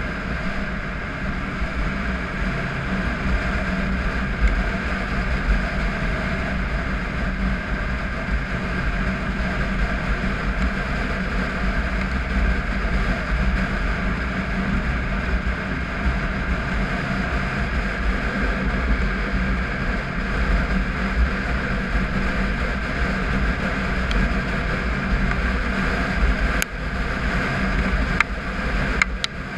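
Triumph Tiger 955i's three-cylinder engine running steadily at a constant cruise, heard on board with wind and tyre noise from the gravel road. There are a few sharp clicks near the end.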